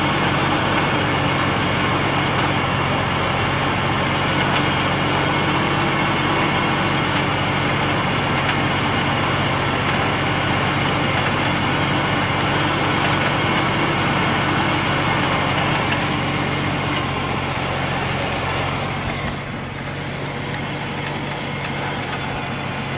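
Ford Taurus idling, heard from underneath the car, with the mysterious rattle that the owner suspects is coming from the exhaust. It runs steadily and gets somewhat quieter about 19 seconds in.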